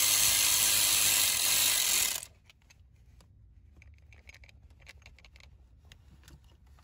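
A power tool's motor runs steadily, having just spun up, and cuts off about two seconds in, running in the fuel pump's mounting bolts. Faint scattered clicks and taps of tools being handled follow.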